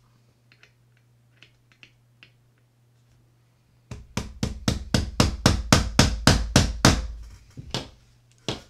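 A screwdriver handle rapping a flat-ended punch against the end of a Shimano Bantam Curado CU-200 baitcasting reel's spool shaft: about four sharp metal taps a second for nearly four seconds, then one more tap near the end. The taps are meant to drive out a spool that feels seized in its bearing from years of grime.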